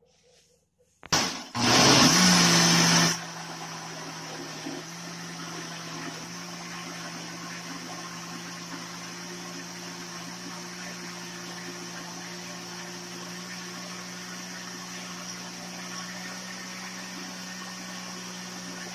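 Electric countertop blender switched on about a second in, its motor pitch rising as it spins up and loudest for the first couple of seconds. It then settles into a steady run, blending a creamy liquid mix of cream, condensed milk, yogurt and strawberry drink powder.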